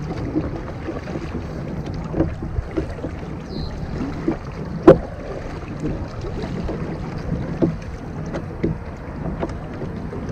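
Water sloshing and splashing against the hull of a Perception Outlaw 11.5 kayak, with small knocks and one sharp knock about five seconds in, over wind on the microphone.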